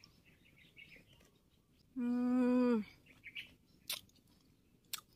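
A woman eating lime slices: soft chewing, then about two seconds in a steady closed-mouth 'mmm' of just under a second that drops in pitch at the end, followed by two sharp clicks about a second apart.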